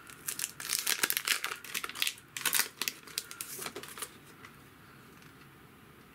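Clear plastic sticker packet crinkling and crackling as it is torn open and the sheets of PET dot stickers are pulled out. The crinkling stops about four seconds in.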